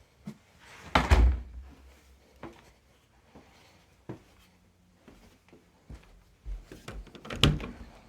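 A few knocks and thumps with quieter clicks between them. The loudest is a heavy thud about a second in, and a cluster of knocks comes near the end.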